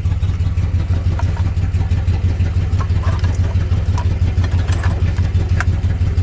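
An engine idling with a steady, evenly pulsing low drone, with a few faint metallic clicks over it.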